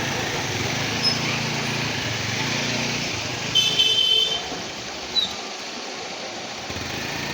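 Road traffic: a vehicle engine runs steadily, then drops away about halfway through and picks up again near the end. Midway a short, high, beep-like tone sounds, like a vehicle horn.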